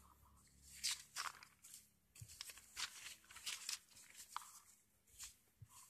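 Sheets of lined notebook paper rustling and crinkling as a page is handled and turned over: a run of short, faint, irregular crackles.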